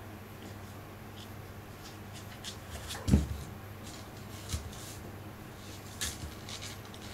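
Siberian kitten playing on and around a hard diatomaceous-earth bath mat: faint scratching and light tapping of paws, and a dull thump about three seconds in as its body hits the floor or mat, with smaller thumps a second and three seconds later, over a low steady room hum.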